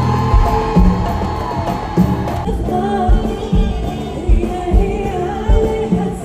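Live Arabic music: a woman sings a melody into a microphone over an orchestra, with recurring drum hits.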